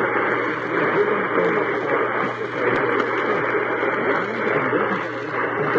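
Steady hiss and static of a radio receiver on a weak signal, band-limited like an AM or scanner channel, with faint wavering sound buried underneath.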